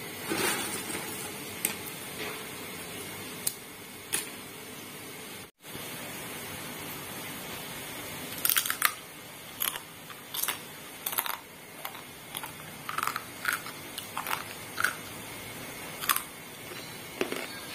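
Fried cassava chips crunching as they are bitten and chewed: a quick run of short, sharp crunches through the second half, after a few scattered clicks of chips being handled on paper.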